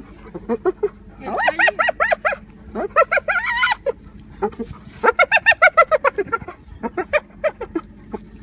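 An animal calling in several bursts of rapid, pulsed notes, like a cackle.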